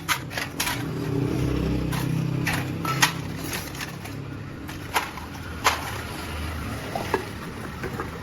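Scattered sharp clinks and knocks over a low rumble of road traffic. The rumble swells about a second in and eases off after three or four seconds.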